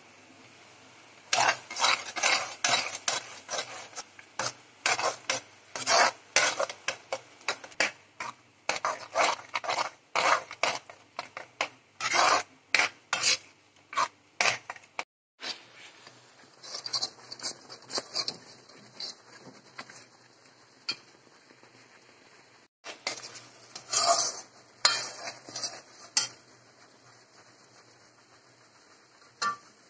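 A steel spoon scraping and stirring thick jackfruit paste in a metal pan, with quick rasping strokes about two or three a second. After a brief break about halfway through, the strokes come fewer and further apart.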